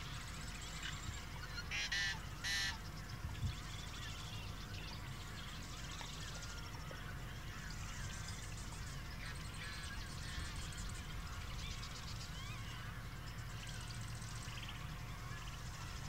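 Marsh ambience: many birds calling with short chirps throughout, and two louder harsh rattling calls about two seconds in, over a steady low rumble.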